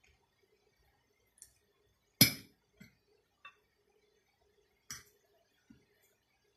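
A metal fork clinking against a plate while twirling spaghetti: a handful of separate sharp clinks, the loudest about two seconds in.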